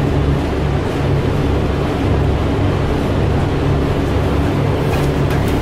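Steady low drone and rumble of a moving bus or light-rail car heard from inside the passenger cabin, with a few faint clicks near the end.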